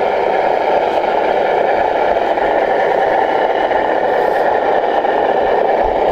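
Onboard sound module of a scale RC Kenworth truck playing a simulated diesel engine through its small speaker, running steadily with a thin, mid-pitched sound and little low end. The owner says the sound still needs some adjustment.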